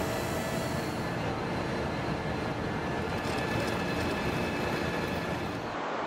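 Steady industrial din of truck assembly-line machinery, with faint steady whining tones over it; the sound changes near the end.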